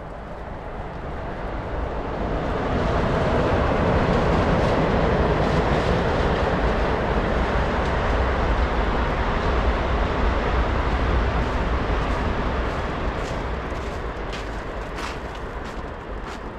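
Long Island Rail Road passenger train passing, a steady rumble that swells over the first few seconds, holds, and fades toward the end. A few sharp clicks are heard near the end.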